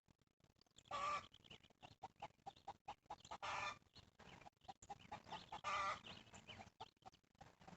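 A chicken calling three times, each call about half a second long and spaced a couple of seconds apart, over a faint scatter of small clicks.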